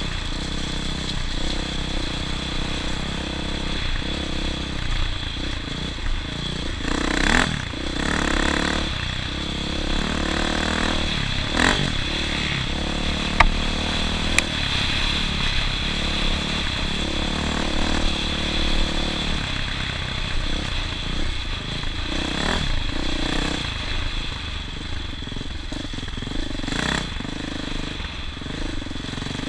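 An engine running steadily with its speed shifting now and then, with rattling and a few sharp knocks over it.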